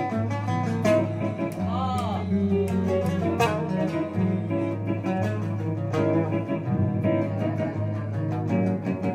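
Arabic oud played solo in a Sanaani style, a quick run of plucked notes over held low notes.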